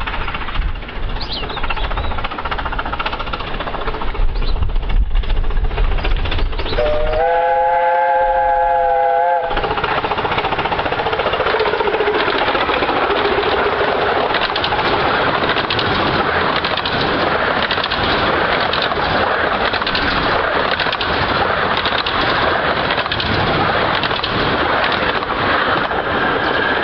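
A 15-inch-gauge steam locomotive sounds its chime whistle, several tones together held for about two seconds about seven seconds in. Right after, the train passes close by in a loud, steady rush of exhaust and rapid clatter of wheels on the track.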